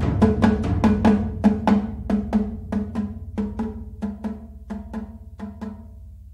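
Percussion music: a steady drum pattern of about four strikes a second over a low sustained drone, fading out toward the end.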